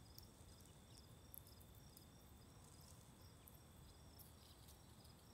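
Near silence with faint insect chirping: a short high chirp repeating about three times a second over a faint steady high trill.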